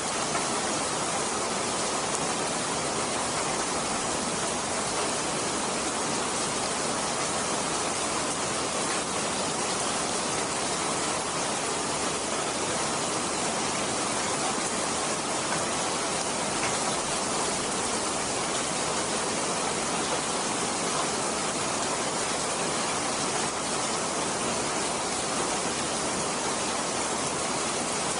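Steady, even rain falling heavily, with no thunder or other breaks.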